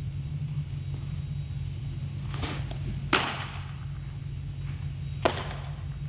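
Two sharp smacks of a baseball about two seconds apart, the louder one about three seconds in and preceded by a brief whoosh, over a steady low rumble.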